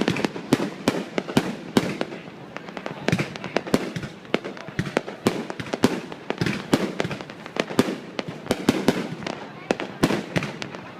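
Fireworks going off: a dense, irregular string of sharp bangs, several a second, with no let-up.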